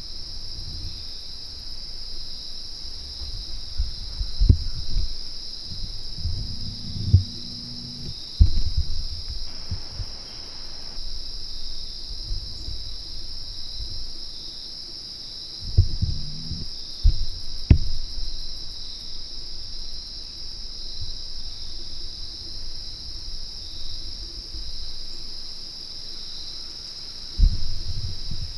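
Steady high-pitched insect chorus of crickets or similar insects trilling without a break through a forest evening. Now and then come low thumps and rustles close to the microphone, the loudest about four and eight seconds in, twice around sixteen to eighteen seconds in, and near the end.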